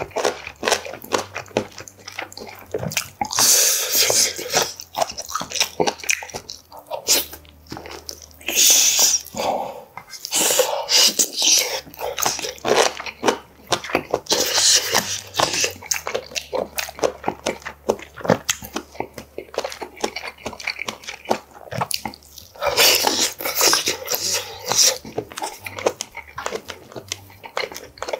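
Close-miked eating sounds of a man chewing braised pork back ribs and kimchi: wet smacking, chewing and sucking of meat off the bone. Several loud airy bursts of mouth noise stand out, about four seconds in, near nine, near fifteen and near twenty-three seconds.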